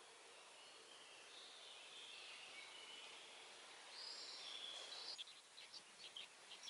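Near silence in woodland: faint distant birdsong over a soft hiss, with a few short high chirps in the last second or two.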